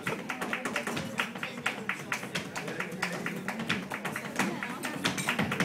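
Flamenco performance: rapid, irregular percussive taps over guitar, typical of a dancer's footwork.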